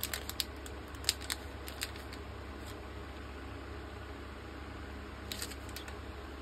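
Small crinkles and clicks of screen-protector wipe sachets being handled, a cluster in the first two seconds and a few more near the end, over a steady low hum.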